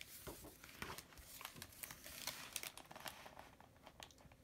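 Faint rustle and crinkle of a picture-book page being turned by hand, with small clicks of the paper.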